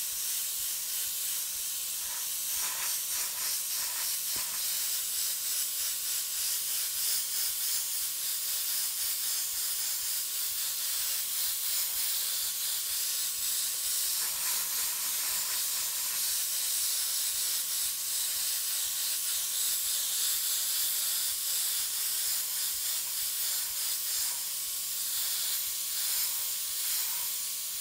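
Iwata HP-CS Eclipse gravity-feed airbrush spraying, a steady hiss of compressed air and atomised paint with small swells in strength.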